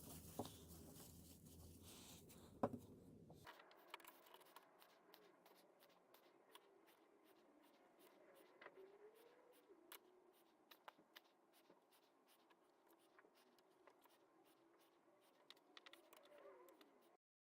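Faint small handling sounds: light scraping and scattered small clicks, with one sharper click a little under three seconds in. After an abrupt drop in the background at about three and a half seconds, it turns very quiet.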